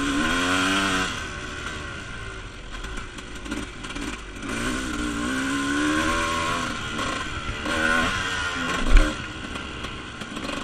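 Dirt bike engine on a motocross track, revving up in several rising pulls that break off and climb again, with a sharp thump about nine seconds in.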